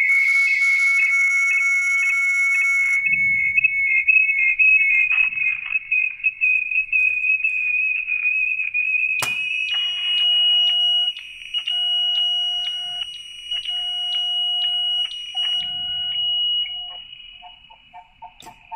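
Electronic alert tones from a Wi-Fi video doorbell system: a loud, high beeping tone warbling in quick pulses, cut off by a click about nine seconds in. A different repeating electronic tone pattern follows and fades out near the end.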